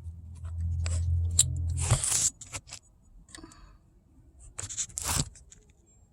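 Handling noise: a low rumble for about the first two seconds, then scattered scrapes and a few sharp clicks as small parts and tools are handled.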